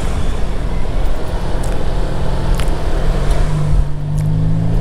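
Motor scooter riding in traffic: a steady engine drone over a dense low rumble. About three seconds in, the engine note rises a little and grows stronger as it picks up speed.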